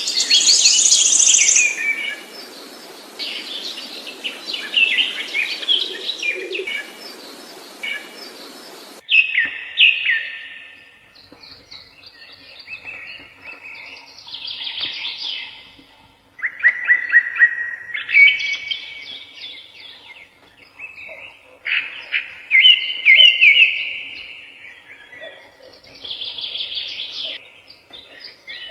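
A songbird singing in a string of short trilled and chirping phrases, a new phrase every second or two. A steady background hiss stops suddenly about nine seconds in.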